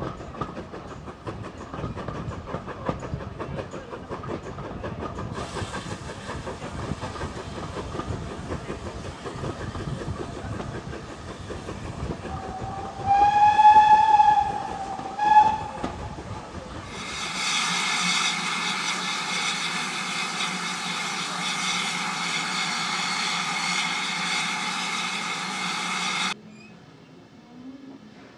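Carriages of a steam-hauled train running, wheels clicking over rail joints, heard from an open carriage window; about 13 seconds in, the GWR Manor class locomotive's steam whistle sounds one long blast and then a short one. After a cut, a steady loud hiss with several held tones runs for about nine seconds and stops suddenly.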